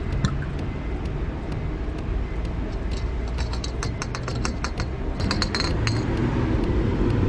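A bottle of fuel additive being emptied into a car's fuel filler neck: runs of light clinks and taps as the bottle knocks against the filler, about three seconds in and again around five seconds, over a steady low rumble.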